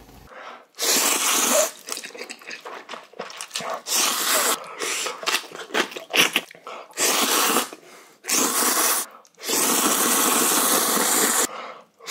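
A person loudly slurping mouthfuls of instant ramen noodles, several slurps of one to two seconds each, the longest about two seconds near the end, with shorter chewing and eating sounds between them.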